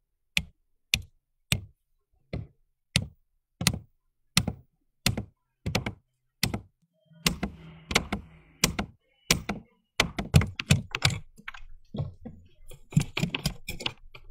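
Hammer blows on a wooden treenail fastening in a clinker boat's planking, wedging it tight. About ten steady blows come one every 0.7 seconds, then after a short pause a quicker run of several blows a second near the end.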